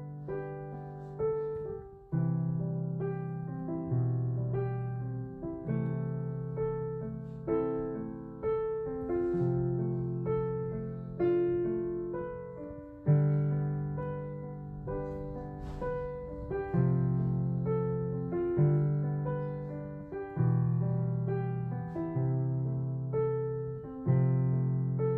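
Background piano music: a gentle melody of struck notes over a low bass line that changes about every two seconds.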